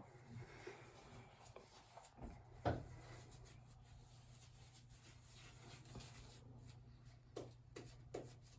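Near silence with a faint steady low hum, soft rubbing and a few light knocks from handling, one about a third of the way in and two near the end.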